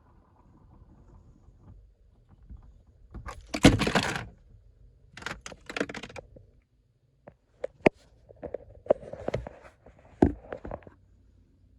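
Irregular rustling and clicking handling noises: a loud scraping rustle about four seconds in, another around five to six seconds, then a string of scattered sharp clicks.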